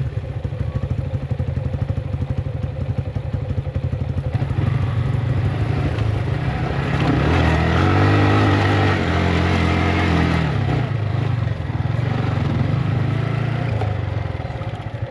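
Motorcycle engine running while riding, with a rapid, even firing beat; about seven seconds in it revs higher and louder for a few seconds, then eases back.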